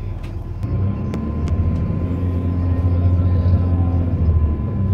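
Cabin of a series 2900 electric commuter train: a low, steady motor hum swells and grows louder as the train pulls away from a halt, with a few light clicks in the first two seconds.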